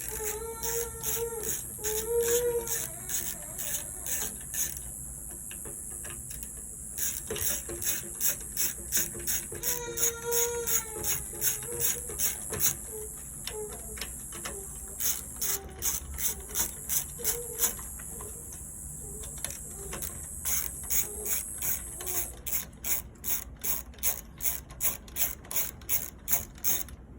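Ratcheting driver clicking in long, even runs while backing out the Torx screws on a seatbelt retractor cover, with a few short squeaks. The clicks come about two a second near the end.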